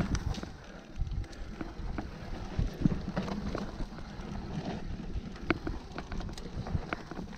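Mountain bike riding down a dirt trail: tyres rumbling over the ground, with scattered clicks and knocks from the bike over bumps, and wind noise on the microphone.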